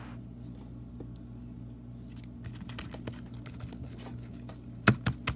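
Slime being squeezed and kneaded roughly by hand, making many small sticky clicks and pops, then two loud sharp smacks close together near the end.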